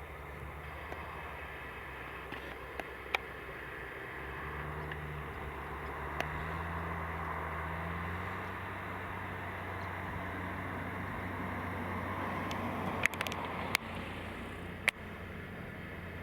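Diesel engine of farm harvesting machinery running steadily, picking up a little in pitch about four seconds in and settling back after about eight. A few sharp clicks come through, mostly near the end.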